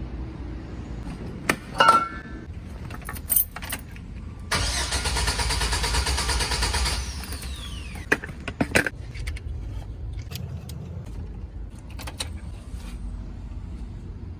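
Keys clicking in the ignition of a GMC Savana van, then the starter cranking the engine for about two and a half seconds and winding down with a falling whine without the engine catching: a no-start.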